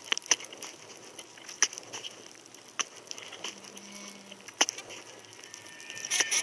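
Underwater sound with a faint steady hiss and sharp, irregular clicks about every second or two. A brief low hum comes in about halfway through, and a hiss starts to rise just before the end.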